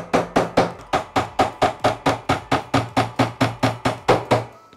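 Rapid, even taps on a special bearing-removal wrench, about five a second, stopping shortly before the end. They are struck to break loose the screwed-in drum bearing of an Electrolux washing machine.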